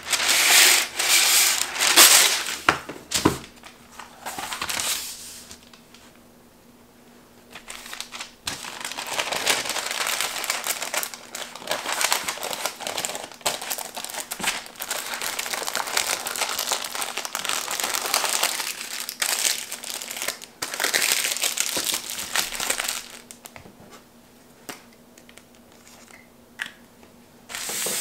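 Parchment paper crinkling and rustling as it is folded and wrapped around breakfast burritos, in on-and-off stretches with two quieter pauses.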